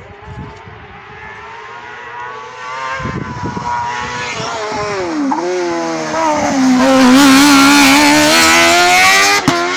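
Car-cross racing buggy at full racing revs approaching up the hillclimb, its engine growing steadily louder. The pitch drops sharply and climbs again about five seconds in, then the engine holds high revs as the buggy passes closest, with a sharp click near the end.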